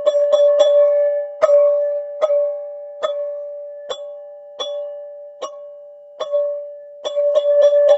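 Teal ZenTube struck over and over, ringing one steady note. The strikes come about four a second, slow to roughly one a second through the middle as the ringing fades between them, then quicken again near the end.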